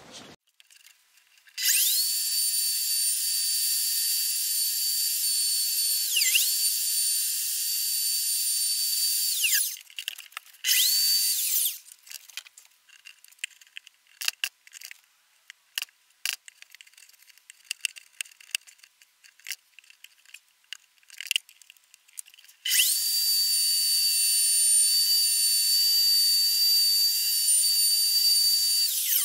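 Electric router spinning up with a rising whine and running steadily for about eight seconds, then a short burst, a stretch of light clicks and knocks, and a second steady run near the end. It is cutting a shallow 1.5 mm recess into the wooden box's edge.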